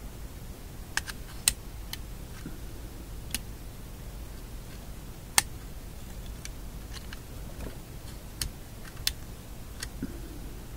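Scattered sharp light clicks and taps, about a dozen at uneven intervals, from small metal parts of a radio shadow meter and a magnet being handled, over a steady low hum.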